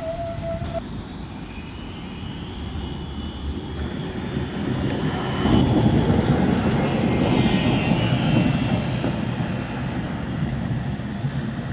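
RET tram running past close by on a grass-covered track: rolling rumble from the wheels and rails, with a faint high whine from its electric drive. It gets much louder about five and a half seconds in as it draws level.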